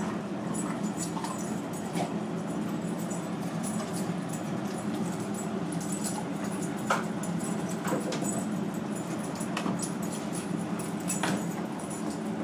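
Two young dogs, a German Shorthaired Pointer and a Weimaraner, play-fighting: continuous dog noises as they wrestle, with several sharp clicks or knocks scattered through, the loudest about seven seconds in.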